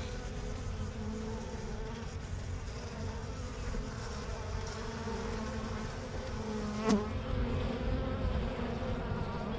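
A mass of honey bees buzzing in a steady, droning hum around the hive being rescued. One brief knock about seven seconds in.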